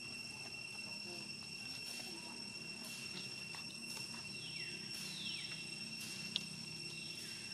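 Insects trill steadily at two high, unchanging pitches. A few brief high calls fall sharply in pitch around the middle and again near the end, and there is a single sharp click late on.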